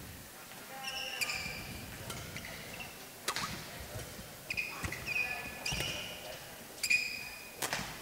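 Badminton rally: rackets strike the shuttlecock with sharp cracks every second or two, and players' shoes squeak in short bursts on the court floor.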